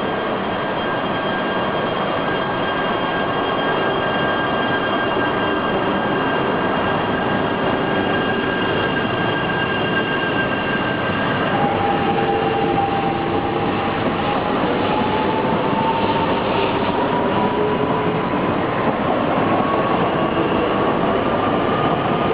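E3 series 2000 Shinkansen train pulling away from a station, with steady running noise. About halfway through, its inverter-driven traction motors start a whine that rises slowly in pitch as the train gathers speed.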